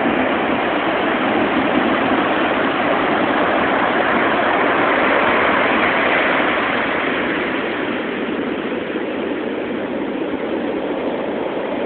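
Ocean surf: the steady rushing roar of large waves breaking and washing up the beach, swelling and then easing a little after about seven seconds.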